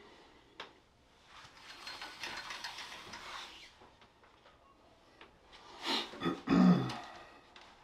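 Shower curtain rings scraping and rattling along a tension shower curtain rod as the curtain is pulled across, then a louder clatter of rings and rod being handled about six seconds in.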